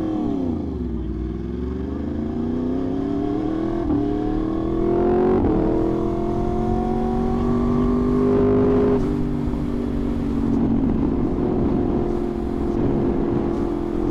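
Yamaha R1 inline-four engine under way: a brief rise and fall in revs, then a steady pull with the pitch climbing for about eight seconds before it settles and holds steady. Wind rush runs underneath.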